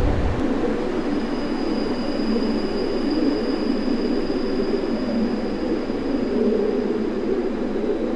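Steady rumbling, rushing noise with a thin high whine held above it: a sci-fi sound effect.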